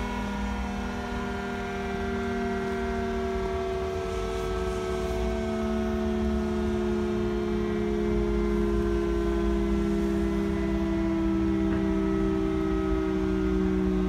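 CS8 electro-mechanical civil defence siren sounding during its test, two tones at once sliding slowly down in pitch together.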